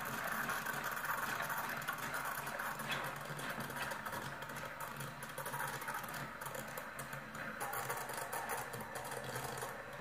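Steam wand of an Arielli KM-501W espresso machine frothing milk in a glass: a steady hiss with fine rapid crackling, slowly getting quieter.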